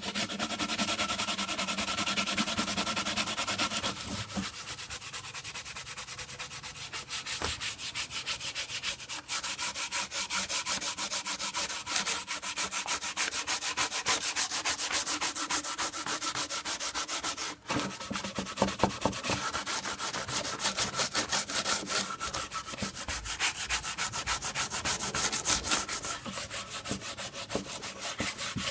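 Sandpaper rubbed by hand back and forth along a bare wooden Mosin Nagant rifle stock, stripped of its old varnish, in quick continuous strokes, with one short break a little past halfway.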